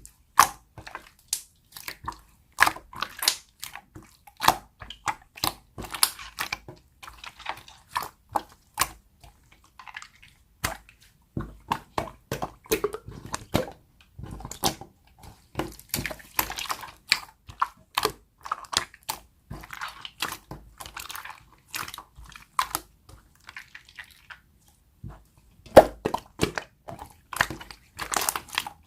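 Slime being squeezed and pressed by hand, giving a steady stream of irregular sticky clicks and pops, with two short pauses.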